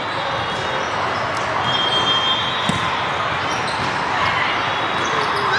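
Echoing din of a big hall full of volleyball courts: volleyballs being hit and bouncing, a crowd talking, and a brief shrill tone about two seconds in.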